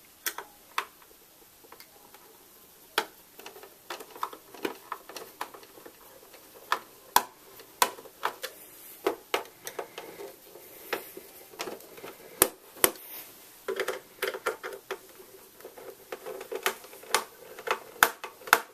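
A screwdriver backing screws out of the plastic back cover of an HP Envy 23 all-in-one PC. It makes irregular clicks and taps of the tool and fingers on the plastic, with a few short scraping stretches.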